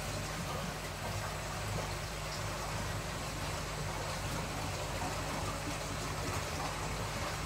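Aquarium filtration running: a steady low pump hum under a constant trickle and splash of water.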